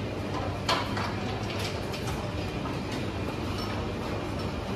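Garden-scale model train running along its metal track: a steady rolling rumble with a few sharp clicks, the clearest about a second in.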